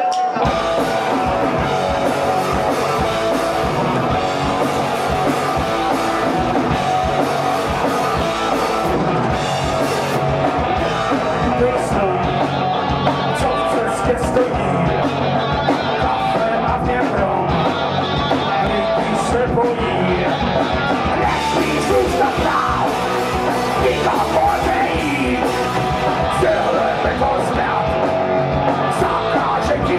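Live rock band playing: electric guitar, bass guitar and drums all at once, with a man shouting vocals into a microphone.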